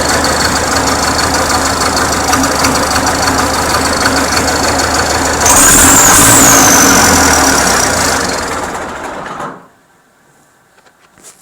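MTZ-82 tractor diesel engine with an added turbocharger, running with a high turbo whistle. About five seconds in the engine is revved, it gets louder, and the whistle rises and falls. The sound then fades and cuts off, leaving near quiet with a few faint clicks.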